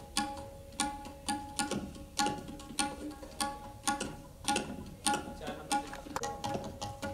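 Indian classical-style music: tabla strokes in an even rhythm, about two a second, each ringing with a clear pitch, over a steady held drone note.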